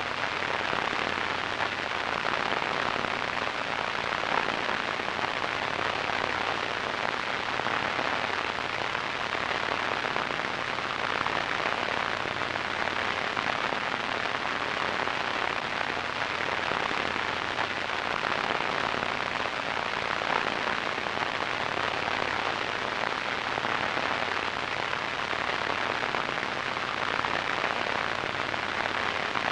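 Radio static: a steady, even hiss with a fine crackle, strongest in the middle and upper range.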